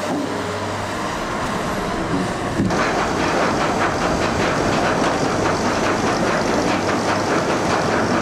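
Industrial sawmill machinery running with a busy mechanical clatter. About a third of the way in it turns suddenly louder, into a dense run of rapid rattling ticks.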